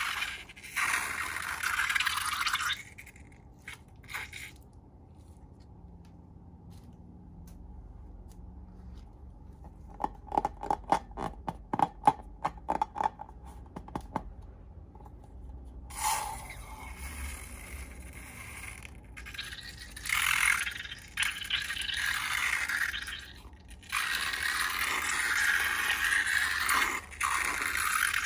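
Slime being mixed and worked in a container: bursts of scraping and rustling, with a rapid run of sharp clicks and pops about halfway through.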